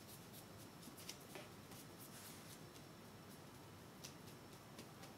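Faint light scraping and small taps of a paintbrush mixing acrylic paint on a palette.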